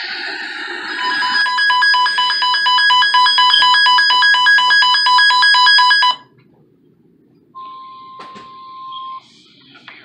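Weather alert radio sounding its alarm for a severe thunderstorm warning: a fast, shrill electronic beeping of several pitches that cuts off suddenly about six seconds in. After a short pause comes a quieter steady single-pitch tone lasting about a second and a half.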